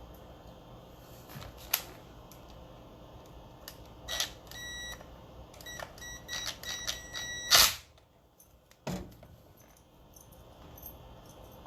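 Clicks and knocks of tools and parts being handled, with a run of short, high electronic beeps in the middle, then a sharp loud click and a dull thump.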